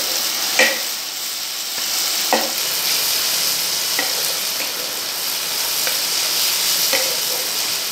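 Sliced onions and tomato paste sizzling steadily in hot mustard oil in a non-stick pan, frying until the raw tomato is cooked off. A wooden spatula scrapes and knocks against the pan several times as it is stirred.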